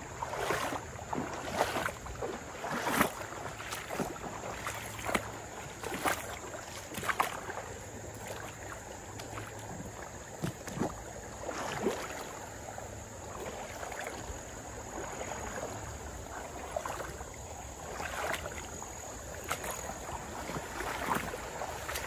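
A shallow creek flowing, with irregular light rustles and clicks close by.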